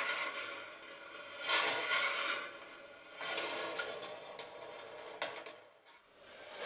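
Hands rubbing and crinkling a sheet of crumpled paper, in several rustling, crackly swells a second or two long, with a short lull just before the end.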